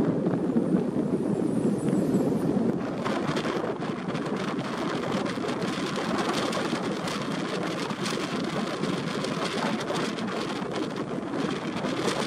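Steady road and wind noise of a moving vehicle: a low, even rumble, with crackly wind buffeting on the microphone from about three seconds in.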